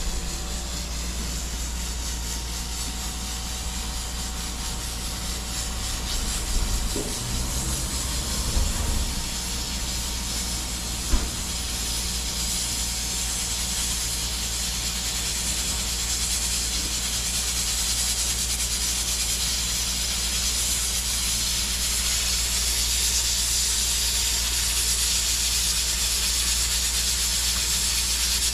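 Steady sizzling hiss of food cooking in a pot or pan over the cooking fire, growing slightly louder later on. A few knocks come between about 6 and 11 seconds in, the sharpest at about 11 seconds.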